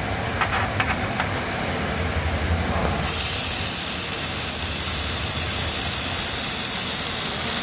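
Handheld fiber laser welding gun hissing loudly as it fires, with gas blowing through the nozzle. The hiss starts abruptly about three seconds in and cuts off sharply near the end, over a steady low hum.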